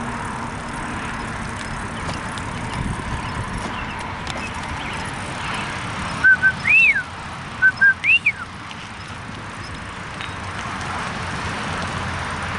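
Someone whistling a loud call twice a few seconds in: each time two quick short notes, then a swoop that rises and falls. A steady vehicle noise runs underneath.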